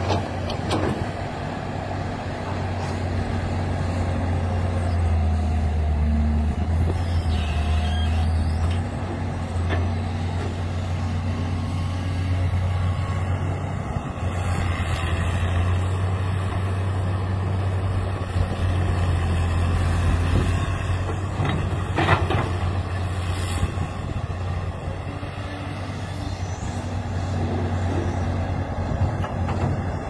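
Diesel engine of a Caterpillar E200B tracked excavator running steadily while it digs and swings. A few sharp knocks come through, about a second in, near ten seconds and around twenty-two seconds.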